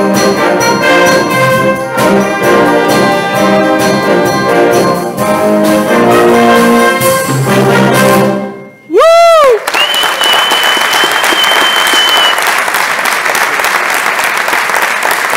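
Concert band playing brass-heavy music that ends about eight seconds in, followed by a short swooping tone that rises and falls. Then audience applause, with a held high whistle over it for a couple of seconds.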